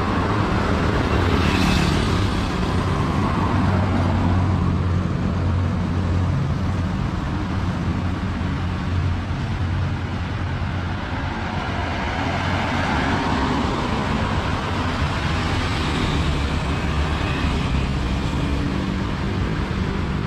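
Road traffic: cars and motor scooters passing on a multi-lane street, a steady engine and tyre noise that swells and fades as each vehicle goes by.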